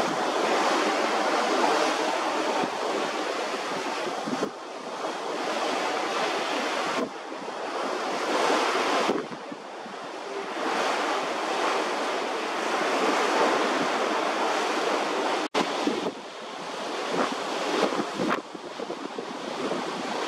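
Steady rush of sea water with wind on the microphone. It breaks off and resumes abruptly several times, as clips change.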